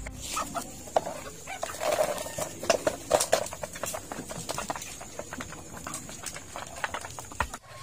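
Native chickens pecking at their feed: many quick, irregular taps, with a few short clucks about two and three seconds in.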